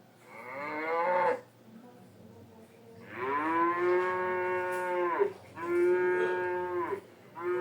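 Cow-like lowing moos used as an animated wildebeest's vocal sound effects: a short call rising in pitch, then a long held moo, a shorter one right after it, and another starting at the end.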